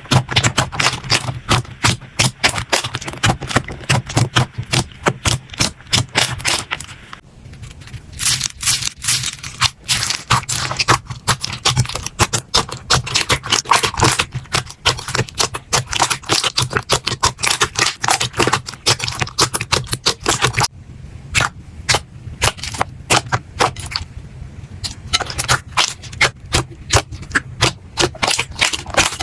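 Slime being squeezed and pressed by hand, giving a dense, irregular run of crackling clicks and pops, with a couple of brief lulls.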